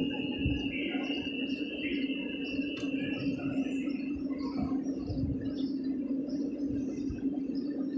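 Small birds chirping over a steady low electric hum from trains standing at the station, with a thin high whine that stops about halfway through.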